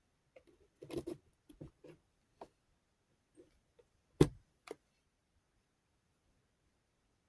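Handling of a rotary tool accessory set and its case: a run of light clicks and taps, with one sharp knock about four seconds in.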